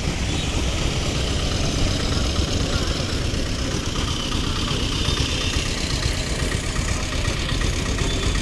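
A motor vehicle engine idling steadily close by, a continuous low rumble with street traffic behind it.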